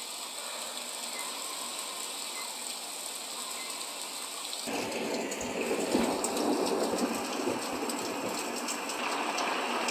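Film soundtrack ambience: a faint steady hiss, then about five seconds in a louder, even rushing noise with many scattered patters, like rain falling.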